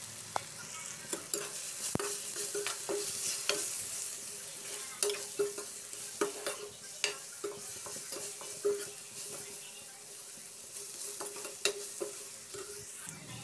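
Chopped vegetables sizzling in a hot pan while a metal spoon stirs them, its strokes clinking and scraping against the pan about every half second.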